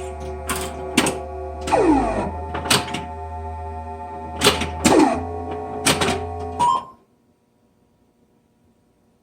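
Williams Flash pinball machine: its electronic sound board holds a steady multi-tone drone with two falling swoops, over sharp mechanical clicks from the machine's relays and coils. The sound board is choosing wrong sounds because one of its five sound-select lines from the driver board drops out at a bad Molex terminal. Everything cuts off about seven seconds in, leaving only faint hum.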